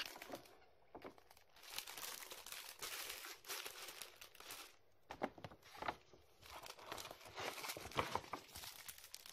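Clear plastic packaging crinkling and rustling as wrapped goods are handled, faint and irregular, with a few sharper crackles.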